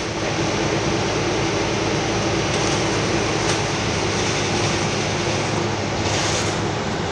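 Cabin noise aboard a New Flyer Xcelsior XDE40 diesel-electric hybrid bus on the move: a steady drone of drivetrain and road noise with a low hum underneath, and a brief hiss about six seconds in.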